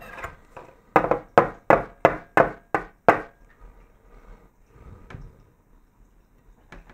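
Fork and knife knocked against a wooden tabletop seven times in quick succession, about three knocks a second, followed by a few faint clicks.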